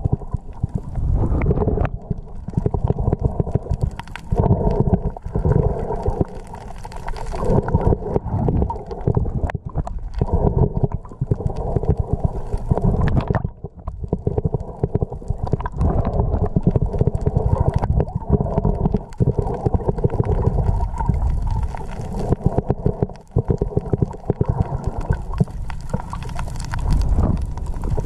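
Muffled underwater rumble and gurgling of water moving around a camera in a waterproof housing as the diver swims, with frequent small knocks and clicks.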